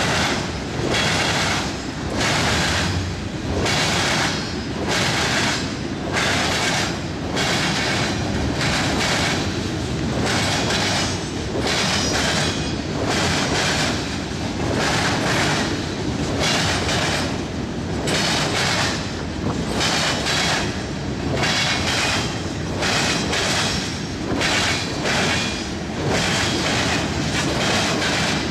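CSX freight train passing close by, its cars' wheels clattering over the rail joints in a steady rhythm of about one beat a second, over a continuous rolling rumble.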